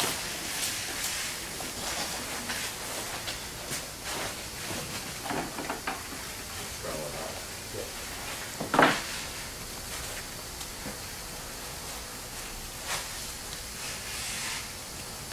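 Gloved hands pressing and smoothing wet GFRC premix in a mold: soft scuffs and pats over a steady hiss. One sharper knock comes about nine seconds in.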